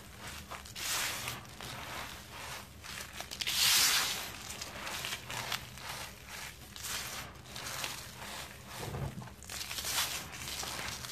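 Hands crushing and crumbling clumps of sand-and-cement mixture: gritty crunching and the hiss of falling grains in repeated squeezes, the loudest a little under four seconds in. A low steady hum runs underneath.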